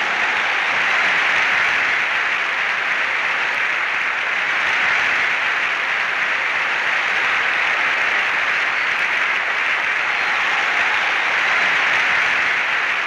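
A large stadium crowd applauding, a dense, steady sound of thousands of hands clapping that holds at the same level throughout.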